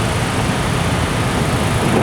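Container freight train rolling along the track, a loud steady running noise of wheels on rail.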